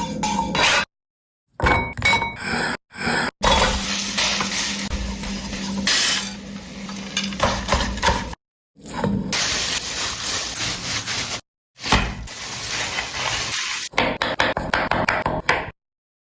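Cooking sounds: utensils clinking and scraping against pots and pans, over a steady noisy hiss. The sound comes in several short stretches that cut off abruptly and restart.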